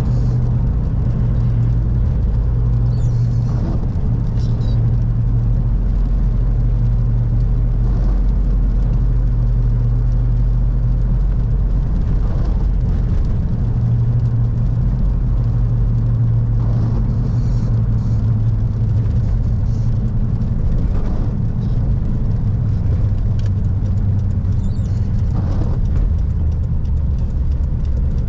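Cab interior of a 1997 Toyota Hilux under way: its naturally aspirated 3.0-litre 5L four-cylinder diesel drones steadily under road noise, the engine note shifting in pitch a few times.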